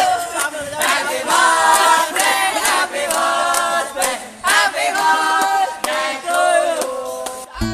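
A small group of people singing together without accompaniment, several voices at once, cut off abruptly near the end.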